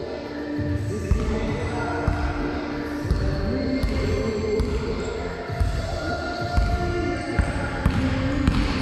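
Basketball bouncing on a wooden gym floor with a few irregular bounces that come quicker near the end as the ball is dribbled in a large, echoing hall.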